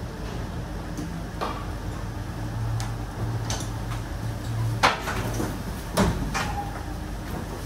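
Scattered knocks and clacks of ice hockey players' gear as they come in on skates: blades on the floor, sticks and equipment being set down. The sharpest knocks come about five and six seconds in, over a steady low hum.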